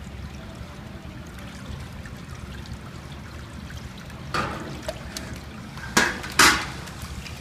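Water in a hydro-dipping tank sloshing and trickling as a hand sweeps through it, with a splash about four seconds in and two louder splashes about half a second apart near the end, over a steady low hum.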